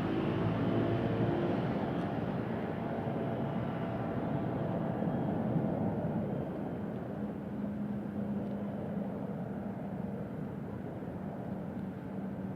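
Street traffic: motor vehicles passing, with one engine's sound fading away in the first seconds. The general traffic noise eases off, and a steady low engine hum runs through the second half.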